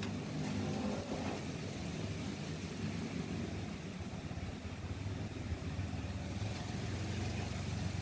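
Strong wind blowing as a steady hiss and rumble, with a vehicle engine idling under it as a low steady hum.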